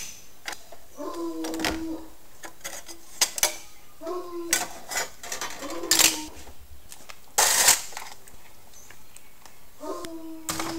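Valve cover bolts coming off a Ford Zetec 2.0 engine: several short whirs of a power driver, each under a second, between sharp metallic clinks of tools and bolts. A louder clatter comes about seven and a half seconds in.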